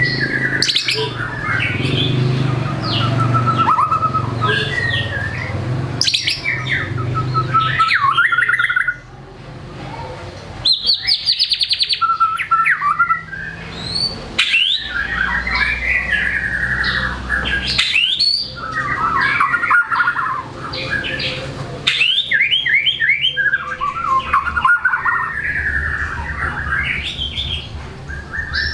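White-rumped shama (murai batu) in full song, pouring out a fast, varied stream of whistles, chattering trills and borrowed calls of other birds, with brief breaks between phrases. About eleven seconds in it gives a rapid rattling trill.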